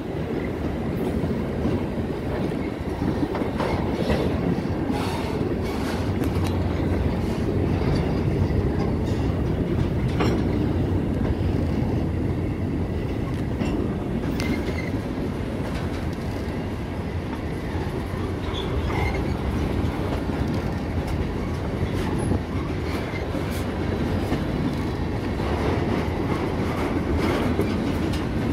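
Freight train's tank cars and hopper cars rolling past at trackside: a steady rumble of steel wheels on the rails, irregular clicks as wheels cross rail joints, and now and then a brief high wheel squeal.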